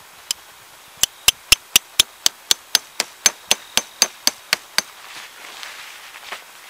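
A tent stake being hammered into the ground: one lone strike, then a quick run of about sixteen sharp, evenly spaced blows at about four a second that stops a little past the middle.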